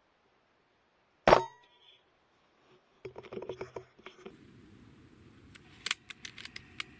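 One loud, sharp crack about a second in, then rustling and a quick run of light clicks, and a few more sharp clicks near the end, like gear being handled.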